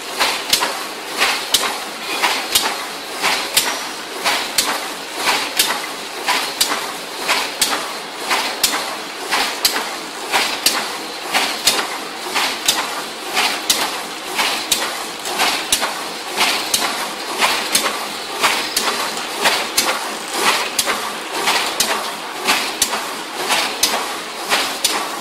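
Paper boat tray gluing and forming machine running at production speed, clacking in an even rhythm of sharp knocks about two a second, one for each tray-forming cycle.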